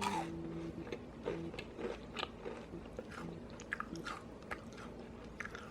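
A chewy cinnamon-sugar cookie being bitten and chewed, with a string of small crisp crackles from its crisp crust.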